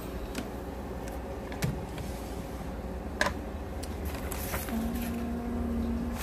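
Handling noise as books and papers on a nightstand are moved: a few light clicks and taps over a low steady hum, with a short steady hum-like tone near the end.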